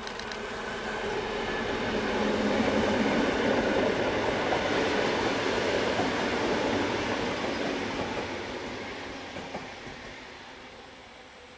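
A DB V 100 diesel-hydraulic locomotive and its train of vintage passenger coaches rolling past. The locomotive's engine hum fades in the first second or so, then the rumble of the coach wheels on the rails swells to a peak and dies away as the train recedes.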